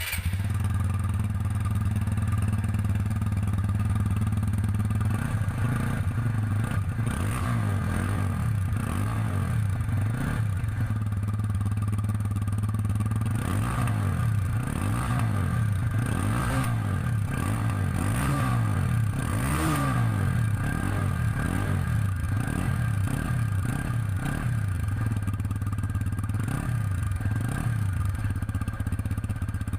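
Stock exhaust of a 2021 TVS Apache RTR 160 2V BS6, a single-cylinder motorcycle engine, idling steadily at first. From a few seconds in it is blipped again and again, its note rising and falling with each short rev, then settles back toward idle near the end.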